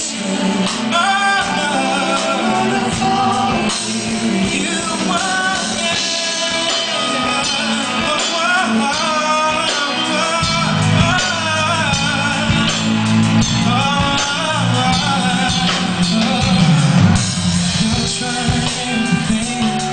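Male R&B singer singing sliding vocal runs into a microphone over a live band, amplified through the venue's PA; the bass gets heavier about halfway through.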